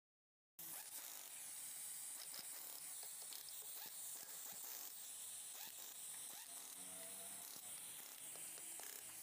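Faint steady hiss with light scattered clicks, starting about half a second in, from a hand driver turning the side-cover bolts on a Honda CD100 engine.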